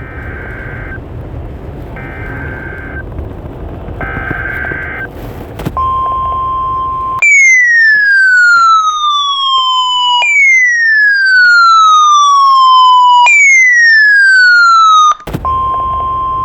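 Weather radio alert sequence over a hissy radio signal: three short buzzy data bursts about a second apart, typical of a SAME digital header, then a steady high alarm tone. The tone breaks off into three slow falling siren-like sweeps and comes back steady near the end.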